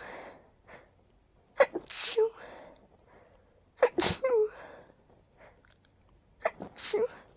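A person sneezing, each sneeze ending in a voiced "choo!". There are two full sneezes, about two and four seconds in, and a sharp catching breath and sound near the end as another sneeze builds.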